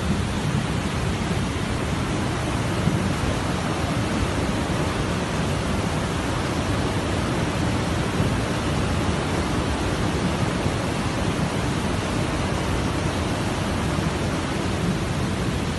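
Steady rush of a mudflow: a fast torrent of muddy water carrying branches and debris.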